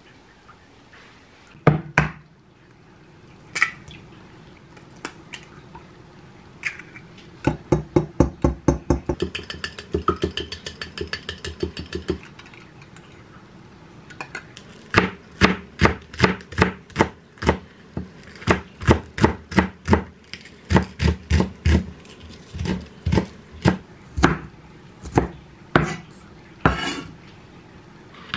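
Kitchen work sounds: a fork and plate knocking, then a quick run of clinking strokes from beating eggs in a glass measuring cup. From about halfway, a chef's knife chops green onions on a wooden cutting board in steady strokes, about two or three a second.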